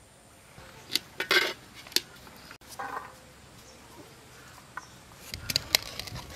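A stainless-steel ladle clinking and knocking against steel plates and dishes while rice is served: a few separate knocks, then a quicker run of clinks near the end.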